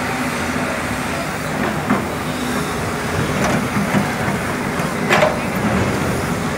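Hydraulic excavators' diesel engines, one of them a Hyundai, running steadily under load as they work their buckets. A few short knocks stand out about a third of the way in, midway and near the end.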